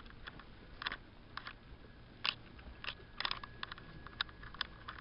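Handling noise: about a dozen light, irregular clicks and taps from dresses on hangers being carried, the sharpest a little over two seconds in and again about three seconds in.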